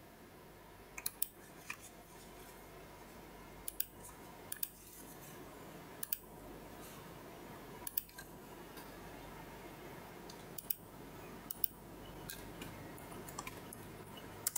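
Computer mouse clicks, single and in quick pairs every second or two, over a faint steady background hiss.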